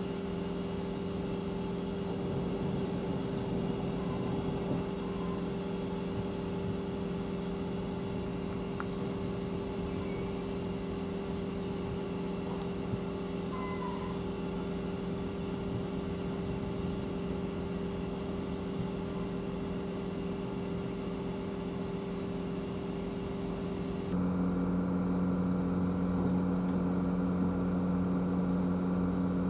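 A ship's diesel engine running at a constant speed, a steady even hum. About 24 seconds in it becomes louder and its tone changes slightly.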